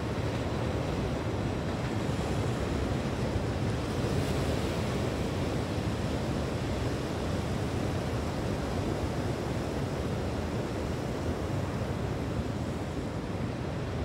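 Ocean surf washing steadily, with wind on the microphone.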